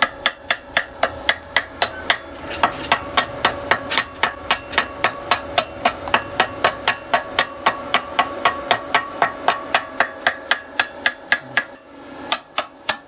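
Hammer striking metal in a fast, even run of about four blows a second, each blow ringing. The blows break off briefly near the end, then a few more follow.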